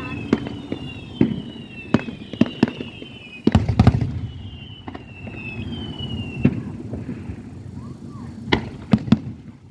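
Aerial fireworks going off: a run of sharp bangs and cracks, thickest in a loud cluster about three and a half seconds in, with several falling whistles and a low rumble underneath.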